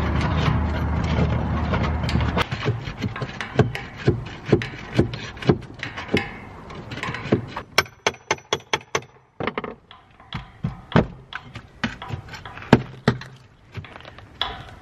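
A metal wrench clicking on the bolts of a satellite dish mount as they are worked loose, in a run of sharp clicks about two a second that quicken for a couple of seconds midway, then come more sparsely. A low steady hum is heard for the first two seconds.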